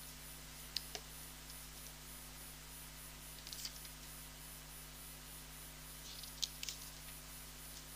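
Quiet room tone with a steady low electrical hum, and a few faint clicks and rustles: a pair about a second in, a short cluster around three and a half seconds, and another pair past six seconds.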